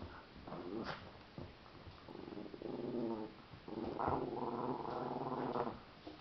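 A dog growling in play, in several rasping bouts, the longest and loudest in the second half.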